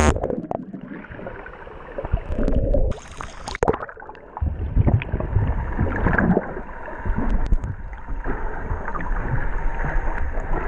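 A splash as the camera plunges into the sea, then the muffled underwater sound of water rushing and bubbling against the camera, with a low rumble. There is a short break above the surface about three seconds in.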